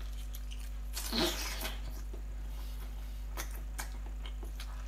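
Wet mouth sounds of someone eating a spicy sauce-covered octopus tentacle: scattered smacks and clicks, with a brief low hum from the eater about a second in.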